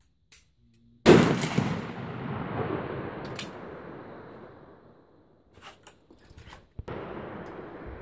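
Two 9mm pistol shots from a Beretta 92FS, about six seconds apart. The first, about a second in, is loud and sharp with a long echo fading over several seconds. The second, near the end, is quieter and also echoes.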